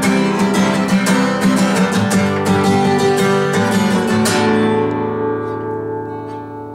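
Acoustic guitar played solo in a blues style, with quick strummed and picked notes. About four seconds in, a last chord is left to ring and fades away, ending the piece.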